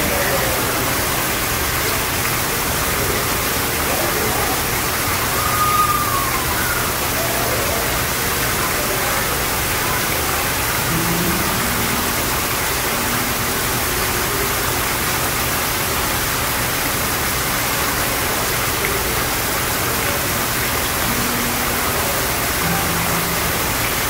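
Small artificial rock waterfall falling steadily into a koi pond: an even, constant splashing rush of water.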